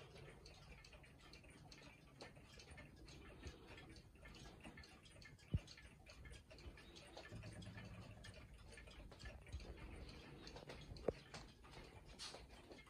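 Many pendulum clocks ticking softly at once, their ticks overlapping out of step, with a louder single click about five and a half seconds in and another about eleven seconds in.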